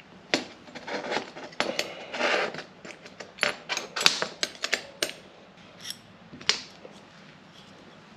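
Metal clicking and clinking as a brake-line double-flaring tool is taken apart: clamp nuts undone, die and tube pulled out, and steel parts set down on a metal workbench. The clicks come in an irregular run for about five seconds, with one last sharp clink a little later.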